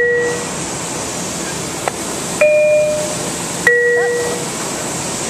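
Two-note descending 'ding-dong' chime from the exterior speaker of a Bombardier M7A railcar. The lower note of one chime is fading at the start, and a full high-then-low chime sounds about two and a half seconds in. It is the attention chime that comes before an automated station announcement.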